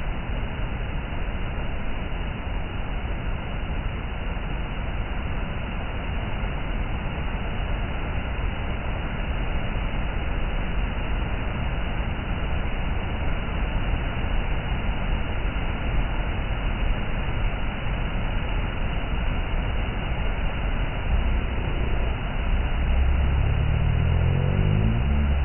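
Waterfall: water falling and rushing in a steady, even roar of noise. In the last few seconds a low tone rises in pitch beneath it.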